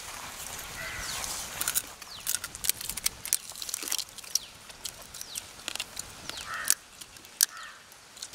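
Close-up eating sounds: irregular crunching and crackling as fried needlefish and crab are bitten and picked apart by hand from banana leaves, densest in the first half, with a few sharp snaps later on.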